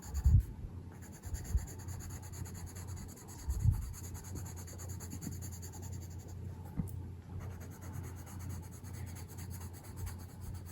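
Watercolour pencil scratching and rubbing steadily on paper as a page is coloured in. A few soft low thumps, the clearest near the start and about three and a half seconds in.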